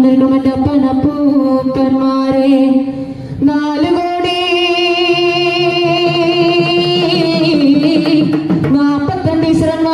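A male voice, amplified through a PA, sings the slow, drawn-out opening of a Malayalam folk song (nadan pattu). It holds a long note from about three and a half seconds in to near the end. Drum strokes sound under the singing in the first few seconds and again near the end.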